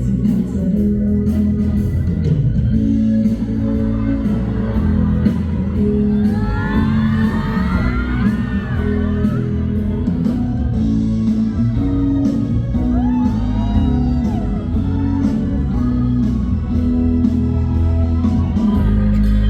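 Live music with a steady beat, with high screams and cheers from the audience rising over it about six seconds in, again around thirteen seconds, and near the end.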